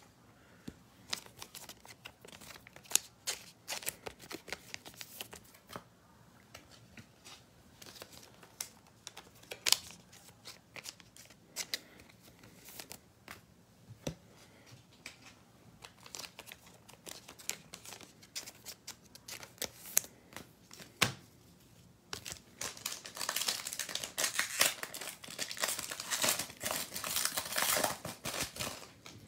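Trading cards being handled with scattered light clicks and taps. About 22 seconds in comes a dense crinkling and tearing of a card pack's wrapper, lasting about six seconds.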